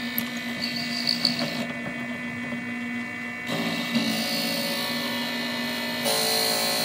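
Wood lathe running with a steady hum while a drill bit in the tailstock chuck bores into the end of the spinning wooden blank, hollowing out a salt or pepper shaker.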